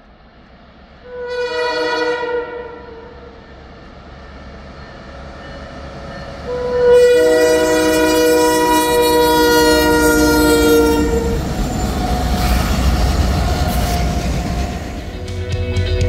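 Diesel locomotive air horn sounding a short chord about a second in, then a long chord from about six to eleven seconds. Then comes the loud, low rumble of the train passing close by.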